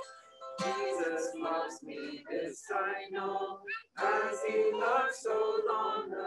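A woman's voice, with others, singing a church song to a strummed acoustic guitar, in sung phrases with short breaths between them.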